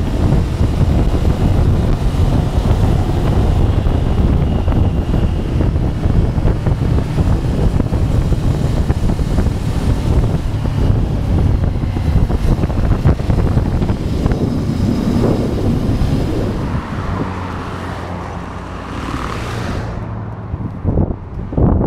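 Heavy wind noise buffeting the microphone of a riding motorcycle at highway speed, over the Ducati Scrambler's engine running. It gets quieter over the last few seconds, with a few short knocks near the end.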